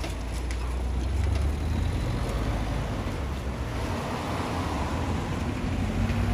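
Road traffic: several cars and a van driving over a level crossing close by, engines running with tyre noise on wet tarmac, swelling as a vehicle passes near about two-thirds of the way in.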